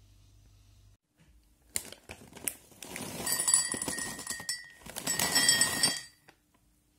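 Whole almonds poured into a glass measuring cup, clattering and clicking against the glass in two pours, with a faint high ring from the glass.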